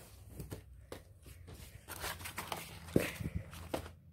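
Scattered soft taps, knocks and rustles of a plush toy and a handheld phone being moved about over a wooden floor, over a faint low room hum.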